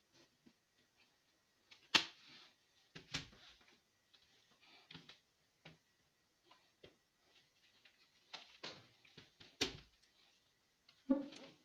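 Irregular clicks and taps of small hard objects being handled, with two sharper knocks, one about two seconds in and one near ten seconds.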